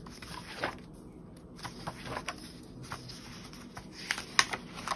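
Paper pages of a spiral-bound planner being flipped: a light rustle broken by a series of sharp flicks, the loudest about four seconds in.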